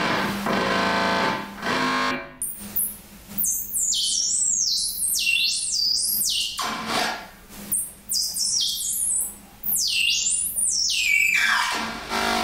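Electronic music: a couple of seconds of held synthesizer notes, then a run of high synthesizer glides that repeatedly swoop down and back up, with held notes returning near the end.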